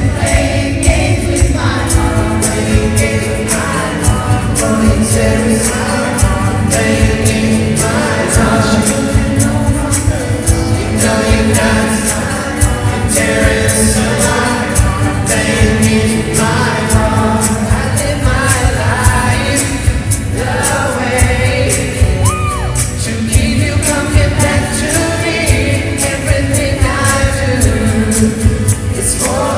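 A male pop vocal group singing live in harmony over amplified accompaniment with a steady drum beat.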